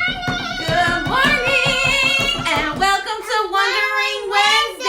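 Voices singing a short tune, with a fast tapping beat under the singing for the first couple of seconds.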